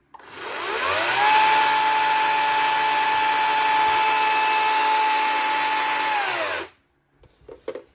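ECHO DCS-5000 56V cordless chainsaw run with no load. The motor whines up to full speed within about a second, runs steady for about five seconds, then winds down and stops.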